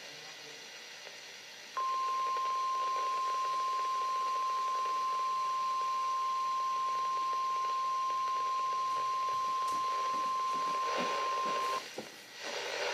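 NOAA Weather Radio warning alarm tone, a single steady 1050 Hz tone. It comes in about two seconds in over the radio's faint hiss, holds for about ten seconds and cuts off sharply. It is sent here for the weekly test, to trip the alarm on weather-alert receivers.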